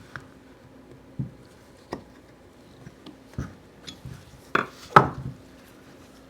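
Small metal parts being handled: scattered light clicks and knocks, with two louder clanks about four and a half and five seconds in.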